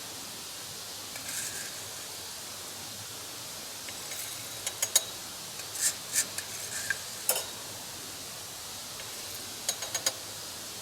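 Light clinks and taps of cookware, in a few short clusters, over a steady background hiss.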